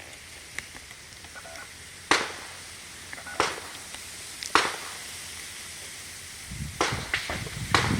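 Sharp metallic clicks from the action of a Smith & Wesson Model 64-3 revolver as it is handled. Three single clicks spaced a little over a second apart, then a quicker run of three near the end, with a low rumbling handling noise building underneath.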